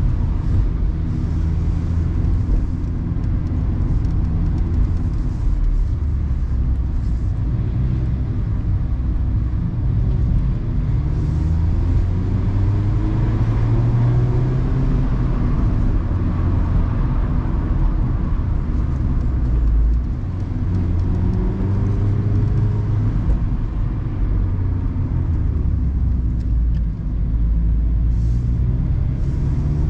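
Mazda Roadster (ND MX-5) four-cylinder engine driving a winding mountain road, its pitch rising several times as it accelerates out of bends and dropping back between, over steady road and wind noise in the open cockpit.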